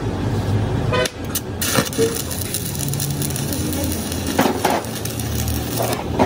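A motor vehicle's engine running with a steady hum, broken by several sharp knocks.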